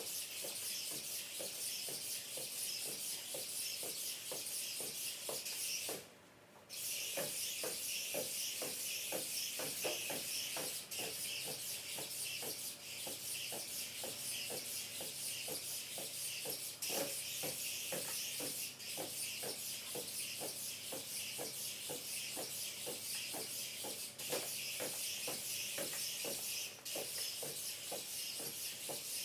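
Red modular hexapod robot walking: a steady hiss with quick, regular ticking from its legs and joint actuators, and a brief dropout about six seconds in.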